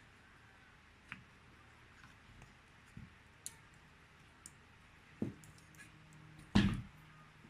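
Scattered light clicks and taps of small components and hand tools being handled on a repair bench, with a heavier knock about five seconds in and the loudest knock about six and a half seconds in.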